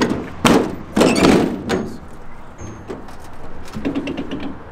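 Metal side door of an enclosed car trailer being unlatched and pushed open, with two heavy thunks about half a second and a second in, then lighter clicks and knocks from the latch and hinges.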